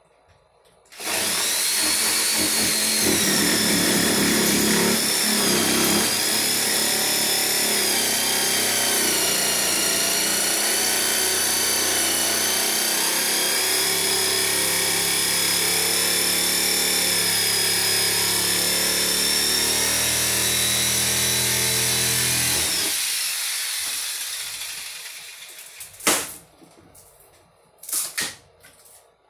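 A corded handheld power tool runs steadily for about twenty seconds as it cuts into the RV's water-damaged plywood floor, then stops. A few sharp knocks follow near the end.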